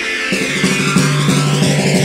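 Rock music soundtrack; a moment in, a plucked guitar passage gives way to a fuller band section with a held low bass note.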